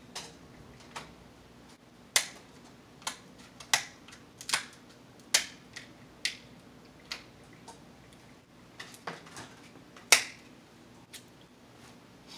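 Close-miked eating sounds from crab: a string of sharp, irregular clicks and cracks, the loudest about two, five and ten seconds in.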